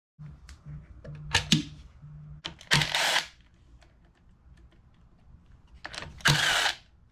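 Cordless power driver run in three short bursts on the bolts of a pit bike's front (countershaft) sprocket, with small metallic clicks and taps of handling the parts in between.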